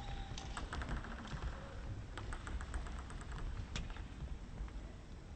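Light, sharp clicks of a table tennis ball bouncing, with a quick run of ticks about a second in and scattered single taps after, in a quiet hall.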